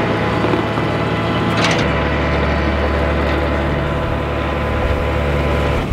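Flatbed tow truck's engine and winch running steadily as a pickup is pulled up the tilted bed, with a deeper hum setting in about two seconds in and a brief sharp crack just before it.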